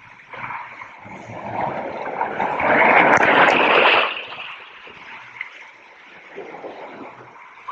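Water rushing and splashing on a water park slide, swelling to a loud rush for about two seconds midway and then easing off.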